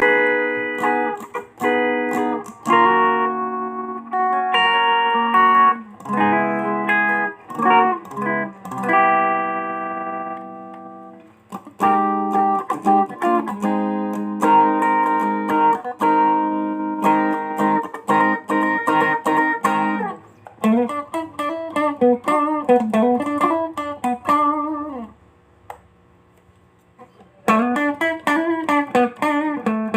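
Mexican-made Fender guitar played as a sound test: strummed chords and picked notes ring out. About two-thirds of the way through, the notes start to waver up and down in pitch. After a short near-silent gap they resume.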